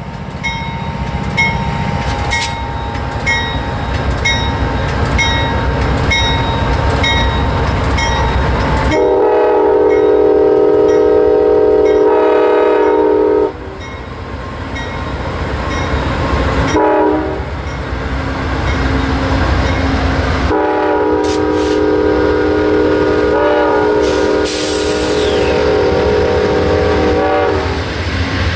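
Amtrak GE Genesis diesel locomotives pulling a passenger train past at low speed, their engines rumbling. The locomotive bell rings about twice a second for the first several seconds. The air horn then sounds a long blast, a short one and a final long blast, typical of a grade-crossing signal.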